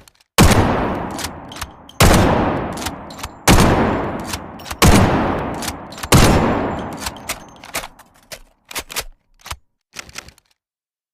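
Remington Model 700 bolt-action rifle firing five shots, roughly one and a half seconds apart, each with a long echoing tail. After the shots comes a series of short sharp clicks.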